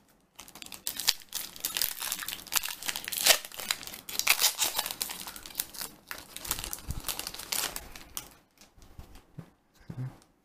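Foil wrapper of a Yu-Gi-Oh! booster pack crinkling and tearing as it is ripped open by hand: a dense run of sharp crackles that thins to a few scattered crinkles about eight seconds in.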